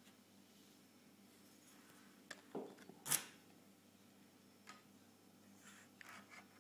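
Soft clicks and rustles of handling as a camera lens is picked up and turned in the hand, over faint hiss. The loudest is a sharp knock about three seconds in.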